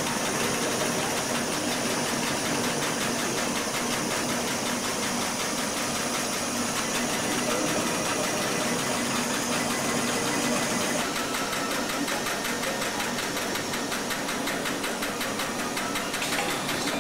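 Photo-lab processing machinery running: a steady, fast mechanical clatter over a constant hum, with a high whine that stops about two-thirds of the way through.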